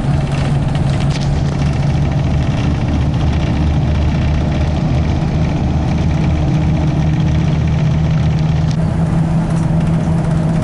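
Car engine running with road and tyre noise, heard from inside the cabin of a moving car: a steady low hum over an even rush.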